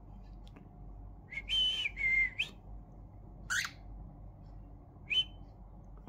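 Lutino cockatiel whistling: about a second in, a clear two-note phrase, a held higher note stepping down to a lower one, followed later by two short rising chirps.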